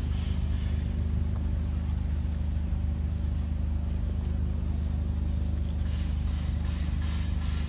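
A motor running steadily nearby: an even, low rumble with a constant hum that does not change.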